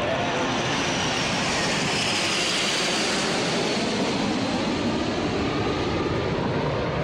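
Formation of jet trainers, the Patrulla Águila's CASA C-101s, flying low overhead: a steady, loud jet rush, with a whine that falls in pitch over the first few seconds as they pass.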